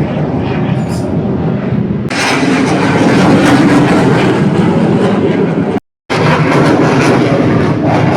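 Loud, steady roar of a low-flying jet aircraft's engines. The roar grows fuller and brighter about two seconds in and drops out for a split second about three quarters of the way through.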